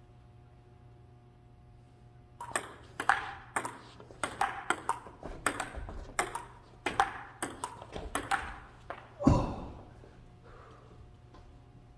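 Table tennis rally: the ball clicks back and forth off the paddles and the table, about two to three hits a second, starting a couple of seconds in. The rally ends about nine seconds in with one heavier knock, the loudest sound of the stretch.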